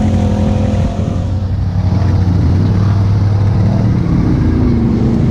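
Off-road engines running: a steady low engine drone close by, with a second engine's pitch rising and falling as a side-by-side UTV works through thick mud.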